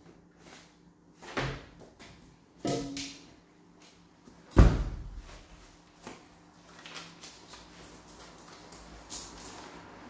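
Commercial tumble dryer's round door being slammed shut, a single loud thud about halfway through, after two softer knocks as clothes are loaded in. A few light clicks and taps follow.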